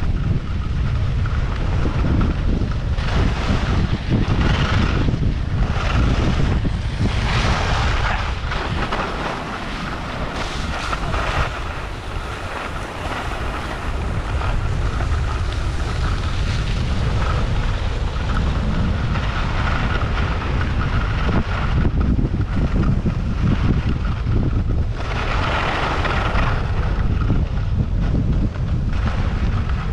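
Wind buffeting the helmet camera's microphone while skiing downhill, with skis hissing and scraping over icy, chewed-up groomed snow. The scraping swells in surges a few seconds in and again near the end.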